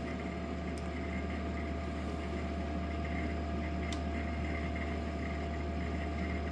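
EENOOR PA600 6,000 BTU portable air conditioner running steadily: a low hum with a thin steady tone and the rush of its fan. Two faint ticks, about a second in and about four seconds in.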